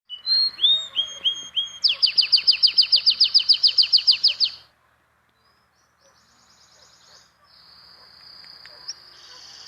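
Songbirds singing: a few short slurred whistles, then a fast trill of about six notes a second that cuts off suddenly partway through. After a brief gap, fainter buzzy trilling calls come in and grow louder near the end.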